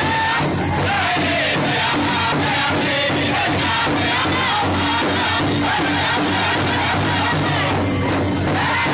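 Powwow drum group singing together in unison around a large shared drum, striking it with drumsticks in a steady beat while the voices carry a sliding melody.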